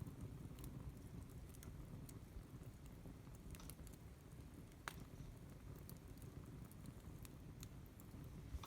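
Wood campfire burning quietly, with a low rumble and scattered faint crackles and pops from the burning wood, one sharper pop about five seconds in.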